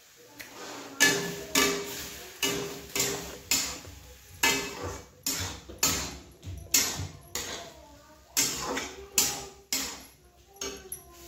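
Steel ladle scraping and knocking against a steel kadhai while thick semolina halwa is stirred, about two strikes a second, each with a short metallic ring.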